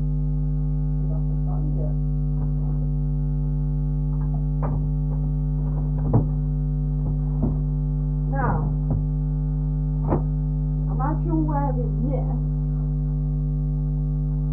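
Steady electrical mains hum, a low buzz with a stack of even overtones, over a few faint knocks, and brief murmured vocal sounds about eight and eleven seconds in.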